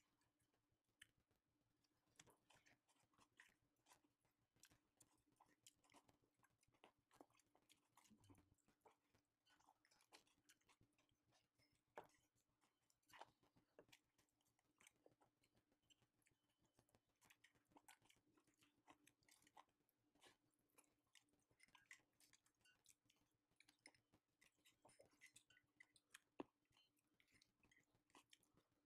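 Faint chewing of a person eating pork ribs and bamboo shoots, with many small irregular clicks and a few sharper ones, the loudest about twelve seconds in and near the end. A faint steady hum runs underneath.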